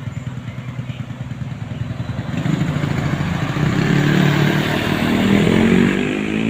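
Motor vehicle engine passing close by on the road, growing steadily louder to a peak about four to six seconds in, then easing off.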